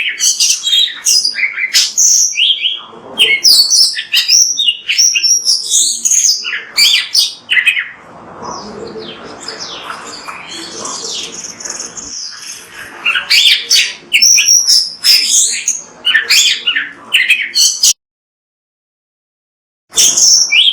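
Oriental magpie-robin (kacer) singing loudly: a fast, varied run of high whistles and chirps. The song softens for a few seconds midway, then cuts out abruptly for about two seconds near the end before starting again.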